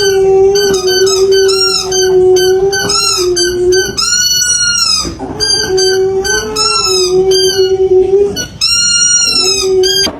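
A dog howling and yowling in short, rising-and-falling cries, with two longer drawn-out howls, over music that holds a long steady low note.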